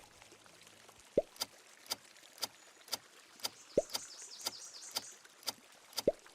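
Countdown timer sound effect: clock-like ticks about twice a second, with a few short rising water-drop 'bloop' sounds among them.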